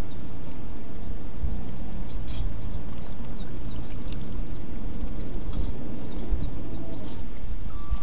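Sea water lapping and splashing along the shore, over a steady low rumble that surges now and then.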